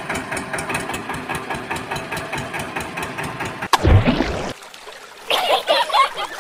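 Tractor engine sound chugging steadily with a rapid, even beat while the toy tractor drives. About 3.7 seconds in it is cut off by a loud splash as the toy drops into a tub of water, followed near the end by voices chattering and laughing.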